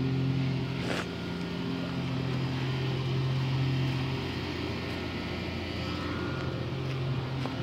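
A steady low motor hum, with a soft knock about a second in and another near the end.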